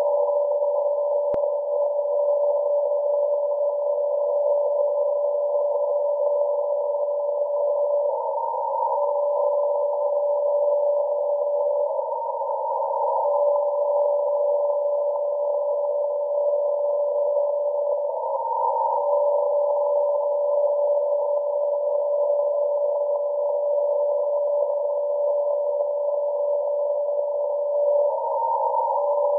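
DCF49 longwave data transmitter on 129.1 kHz received on an SDR in CW mode: a steady tone over narrow-filtered receiver hiss. Four times it breaks for about a second into a warble between a lower and a higher tone, as the frequency-shift-keyed data bursts switch between the two frequencies.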